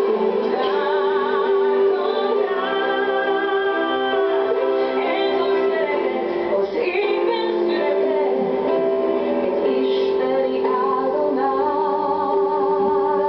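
A song with a woman's voice singing with vibrato over instrumental accompaniment that holds a sustained low note.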